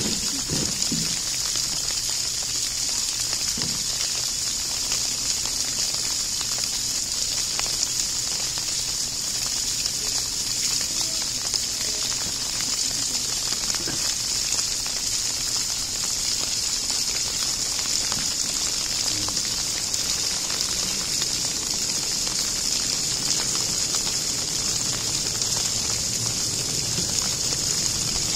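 Steady rain falling, an even hiss with scattered drop ticks that does not change.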